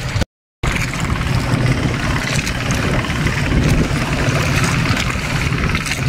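Motorboat engine running steadily under way, with water splashing along the hull. The sound drops out completely for a moment just after the start.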